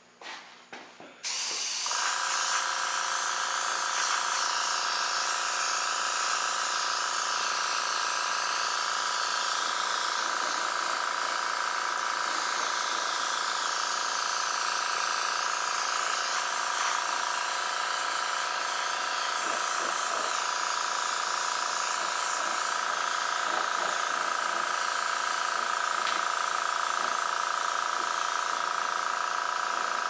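Small airbrush compressor running steadily with an even hum, starting about a second in, under the hiss of air from the airbrush as it sprays.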